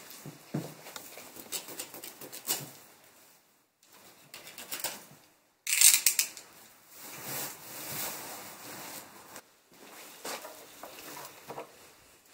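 Dry hay rustling and crackling as it is pulled about and cut loose in a wheelbarrow, in irregular scratchy spurts. The sound drops out completely twice, briefly.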